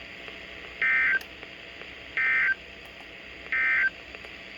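Emergency Alert System end-of-message data bursts: three short, identical digital tone bursts about 1.4 s apart, signalling the close of a weather radio alert, over a faint steady hiss.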